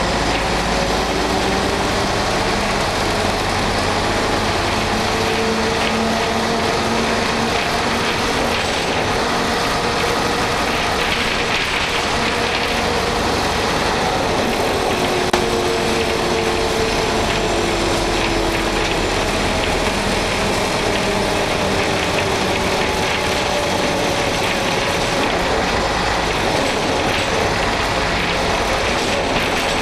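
Interior ride noise of an Ikarus 280.03 bus under way: its diesel engine running loudly, the note rising and falling as the bus pulls through the gears of its manual gearbox, over constant road and body noise. A single short knock about halfway.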